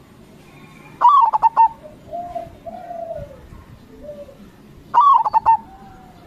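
Zebra dove (perkutut) singing: two loud calls about four seconds apart, each a quick run of stuttering coo notes. Softer, lower coos sound between them.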